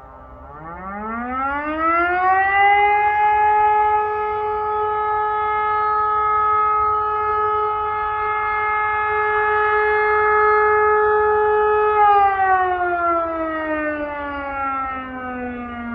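E57 electromechanical civil-defence siren on a test alarm. It spins up from a low pitch into a rising wail, holds one steady tone for about nine seconds, then winds down with falling pitch near the end.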